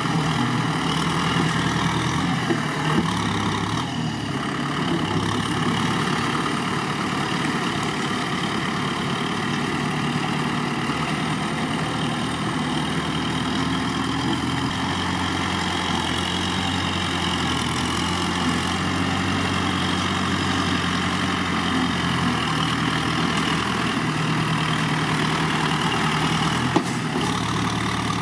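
Kubota M6040SU tractor's four-cylinder diesel engine running steadily as the tractor pushes wet mud with its front blade, with a couple of faint knocks.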